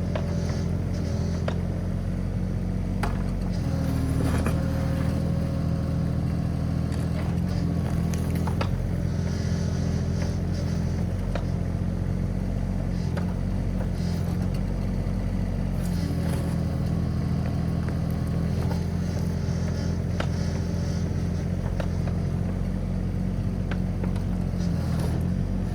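Komatsu PC16 mini excavator's diesel engine running steadily. Its note shifts slightly about 4 seconds in and again about 16 seconds in, with faint clicks over it.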